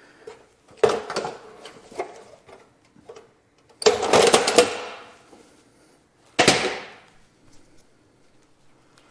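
Clicks, rattles and clanks of folding sawhorses being handled, their legs opened and locked. There is a knock about a second in, a rattling clatter around four seconds, and a sharp clank with a short ring-out past six seconds.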